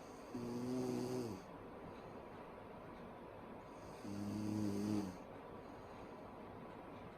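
A sleeping woman snoring loudly: two buzzing, droning snores of about a second each, roughly three and a half seconds apart, the first ending with a slight drop in pitch.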